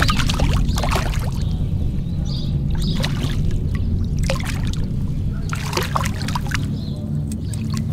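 A hooked crappie being reeled up beside a kayak and splashing at the water's surface, with scattered sharp clicks and knocks over a steady low rumble.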